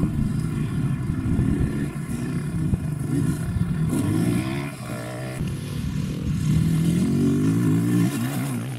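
Dirt bike engine running hard as the bike rides the track, the pitch rising and falling over and over with throttle and gear changes.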